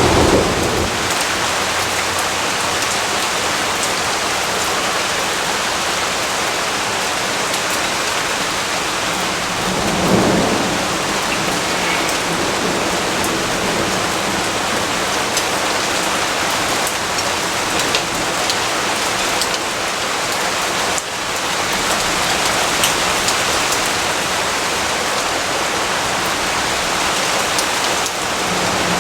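Steady rain falling in a dense, even hiss with scattered drop ticks, and a brief low rumble of distant thunder about a third of the way in.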